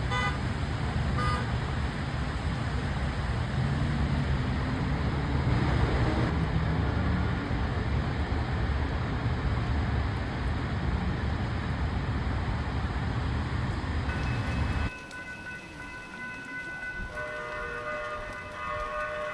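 Road traffic noise on a rainy city street, a steady low rush with a vehicle's pitch rising briefly partway through. About 15 seconds in it cuts off suddenly to a quieter sound with a few steady high tones.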